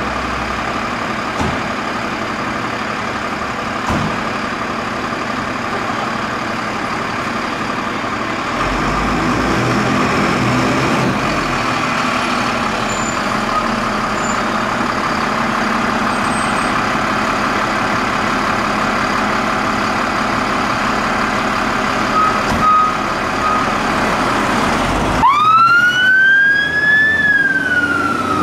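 Fire engine's engine running steadily as it pulls out of the station bay. About 25 seconds in, its siren starts wailing: one tone rising for about two seconds, then falling.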